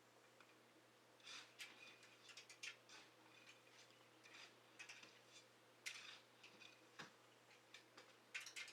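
Faint, scattered clicks and light metallic clinks from small hand tools and hardware on a bicycle brake, in short irregular clusters.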